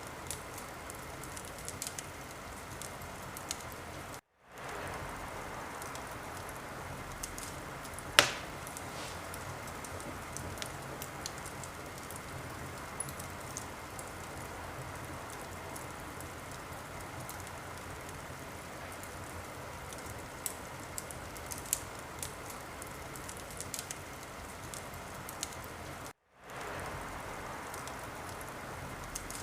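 Wood fire crackling, a steady hiss with scattered small pops and one loud pop about eight seconds in. The sound cuts out for a moment twice.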